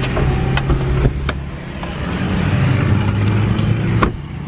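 Car engine running with a steady low hum, heard from inside the cabin, with a few knocks of the camera being handled, the loudest a little after four seconds in.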